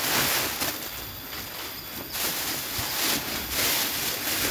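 Close rustling and brushing noise right at the microphone as a person's body, clothing and a handled cloth rub against and move past the camera, swelling and fading several times.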